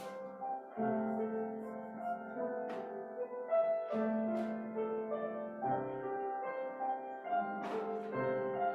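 Piano playing a slow piece in sustained chords, the bass note changing every couple of seconds.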